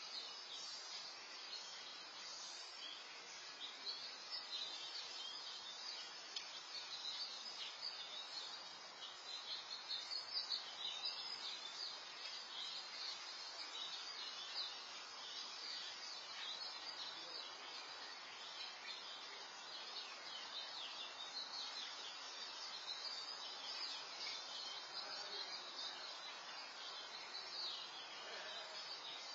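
Faint outdoor background: a steady hiss with continuous high-pitched chirping of small birds or insects, slightly louder for a couple of seconds near the middle.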